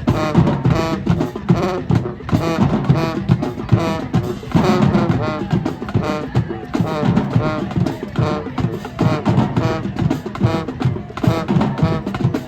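High school marching band playing: brass over a drumline, with a steady pounding beat.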